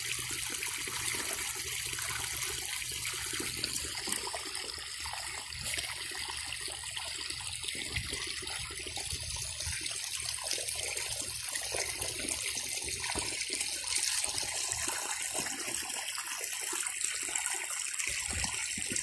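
Irrigation water flowing and trickling along a flooded furrow between crop rows: a steady watery rush with no distinct events.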